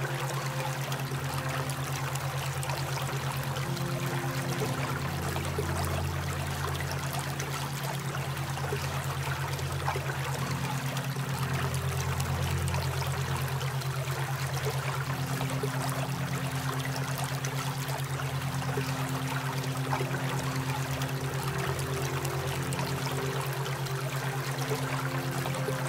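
Relaxation soundtrack of steadily running water, like a stream, over a constant low hum tone and soft sustained notes that shift slowly every few seconds.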